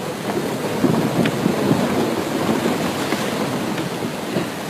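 Sea waves washing and splashing, with wind buffeting the microphone.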